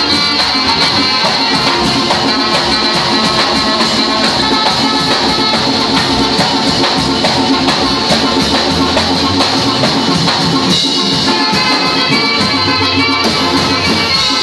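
Live band music for dancing, with saxophone and drums keeping a steady beat.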